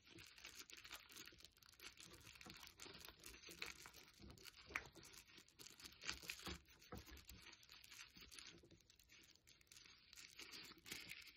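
Faint crinkling and tearing of a small white packaging bag being pulled open by hand, with scattered soft crackles that are a little stronger midway.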